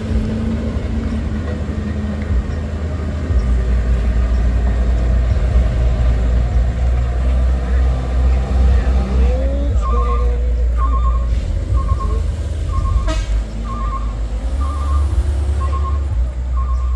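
A heavy vehicle's engine runs with a steady low rumble. About ten seconds in, a reversing alarm starts beeping about once a second, and a single sharp click comes a few seconds later.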